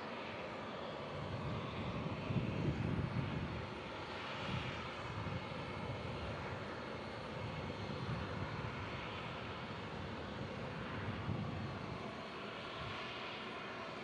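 Embraer E175 regional jet's twin turbofan engines running as it taxis, a steady jet hum with a few louder low swells.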